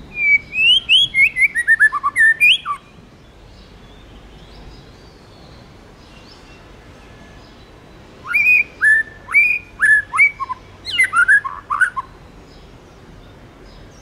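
White-rumped shama singing clear whistled phrases. Just after the start comes a quick run of short notes stepping down in pitch. After a pause of several seconds comes a second phrase of slurred whistles that ends in a rapid flurry.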